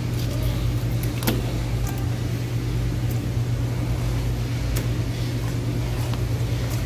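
Steady low mechanical hum, with a few faint clicks scattered through it.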